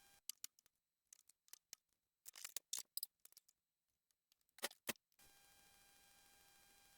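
Faint, scattered clicks of plastic trim pieces and their clips being pried up and pulled out with a flat-blade screwdriver, with a small cluster around the middle and two sharper clicks near the end.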